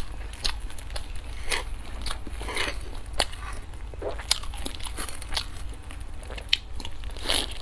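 Close-miked eating sounds: chewing and wet mouth clicks, with soft squishing as a pan-fried bun is torn and dipped in sauce, in short irregular crackles several times a second. A low steady hum runs underneath.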